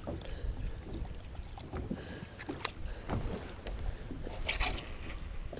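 Lake water slapping against a fishing boat's hull under a low wind rumble, with scattered small clicks and knocks, a cluster of them about four and a half seconds in.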